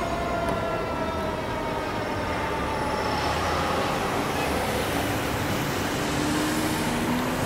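A fire truck's warning tone fades out and drops slightly in pitch over the first couple of seconds as the tower ladder moves away. The rest is the rumble of its diesel engine and its road noise as it drives off.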